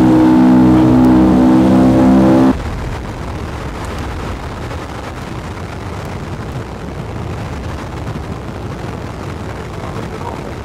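Wright Cyclone radial engines of a B-17 droning in flight, a steady hum with several tones. About two and a half seconds in it cuts off abruptly and a quieter, rougher rush of wind and engine noise takes over.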